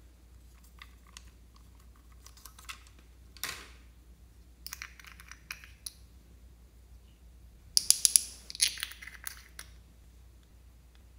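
Small plastic containers clicking and rattling as they are handled and opened, then quick rattling clicks as gold glitter is shaken out of a small jar over a glass dish of clear slime. The loudest run of quick clicks comes about eight seconds in.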